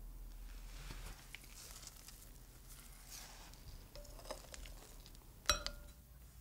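Soft rustling of chicken being worked through a dry flour coating, then chopsticks clinking against a glass bowl of batter: a couple of light taps, and near the end one sharp, ringing clink.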